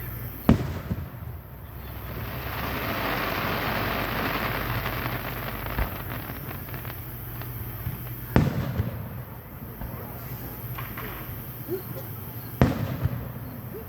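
Fireworks going off: three sharp bangs, about four seconds apart, with a long hissing stretch after the first.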